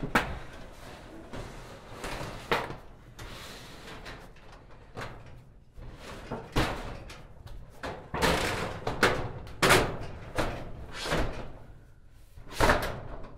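Thin sheet-steel shed roof panel being set onto the shed walls and shuffled into place: a string of irregular metallic knocks and clangs with rattling and scraping of metal on metal between them, the loudest knocks about two and a half seconds in, around eight to ten seconds in, and near the end.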